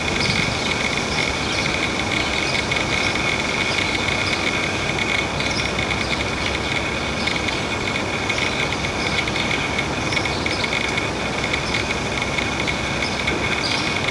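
Modular synthesizer drone: a steady, dense noise with a held high-pitched tone over it and faint small chirps.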